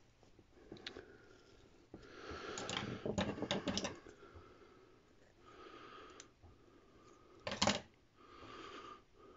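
Brass wool scratching and crackling as it is packed tight into a small brass pipe fitting, with clusters of small metallic clicks and scrapes. These are busiest a couple of seconds in, and there is one sharp click near the end.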